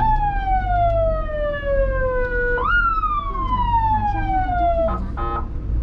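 Ambulance electronic siren sounding two long falling swoops, the second starting higher than the first, then a short horn blast about five seconds in. A low engine and road rumble runs underneath.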